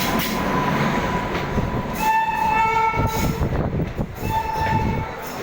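WAP-5 electric locomotive's horn sounding: a long blast about two seconds in, joined by a lower note partway through, then a shorter blast near the end. Underneath runs the steady rumble and clatter of the train's wheels on the rails.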